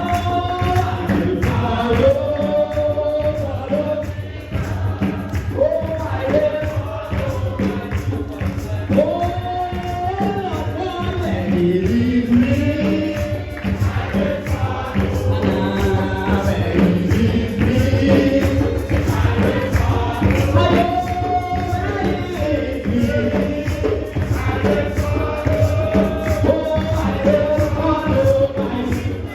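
Church congregation and choir singing a gospel hymn, with a male voice among them, over a live band and a steadily shaken tambourine.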